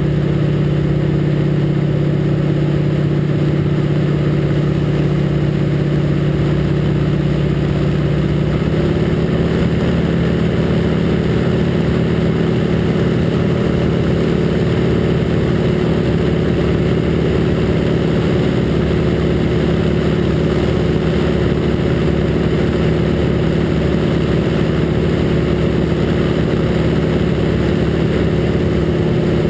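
Harvard II's Pratt & Whitney R-1340 Wasp nine-cylinder radial engine running steadily in flight, heard from inside the cockpit. Its pitch steps up slightly about eight and a half seconds in and then holds steady.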